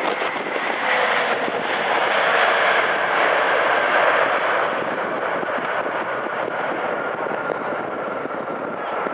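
Jet engine roar of an ANA Boeing 787's Rolls-Royce Trent 1000 turbofans just after touchdown. The roar swells for a few seconds, then slowly eases as the airliner rolls away down the runway, with a high whine that falls steadily in pitch.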